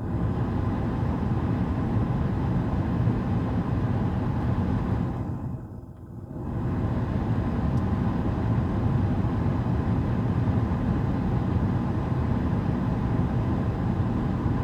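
Cabin blower fan of a Chevrolet S10 pickup running, blowing a steady rush of air through the vents, with a brief drop about five to six seconds in before it comes back. It runs free of the odd noise it made before, now that dry leaves rubbing on the fan have been cleared from its housing.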